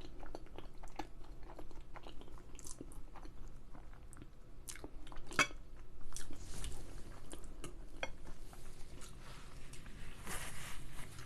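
A person chewing food close to the microphone: irregular wet mouth clicks and smacks with a few sharper crunches.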